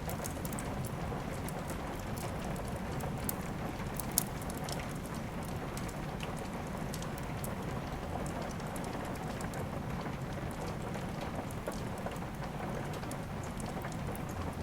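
Steady rain together with a crackling wood fire: an even hiss of rain with scattered sharp crackles and pops, the loudest about four seconds in.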